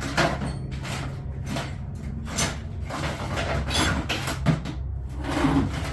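Rummaging through a toolbox for a socket: irregular clinks and clatters of metal tools being moved about, over a steady low hum.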